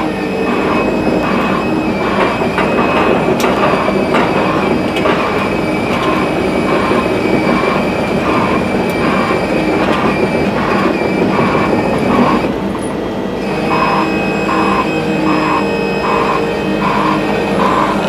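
Engine of a Klein KTP220 concrete pump running at raised revs, a steady loud machine noise with a regular pulsing at about two a second and a high steady whine. The sound dips briefly about three-quarters of the way through, then picks up again.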